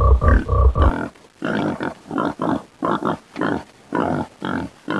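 Pig grunting: a few loud, deep grunts in the first second, then a steady run of short grunts, about three a second.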